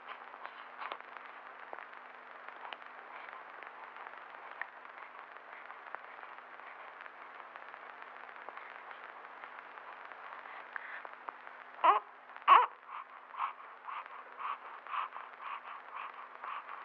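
Newborn baby vocalizing against the hiss of an old film soundtrack: about 12 seconds in, two loud short cries that slide in pitch, then a run of short, softer whimpers about two or three a second.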